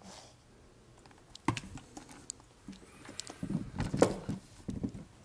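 Handling noise close to the microphone: scattered clicks and knocks with some rubbing as a hand and arm move by the camera and laptop, the loudest knock about four seconds in.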